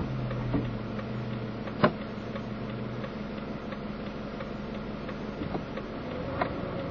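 Toyota 86's flat-four engine idling with the car at a standstill, heard from inside the cabin as a steady low hum; a lower tone in the hum drops away about three seconds in. A few short clicks, the sharpest about two seconds in.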